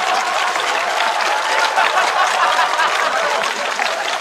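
Studio audience applauding and laughing: dense, steady clapping mixed with laughter, easing off slightly near the end.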